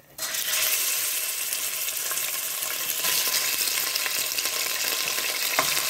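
Raw bone-in mutton pieces hitting hot spiced oil in a pressure cooker and frying, a loud sizzle that starts suddenly just after the start and holds steady. A single brief click comes near the end.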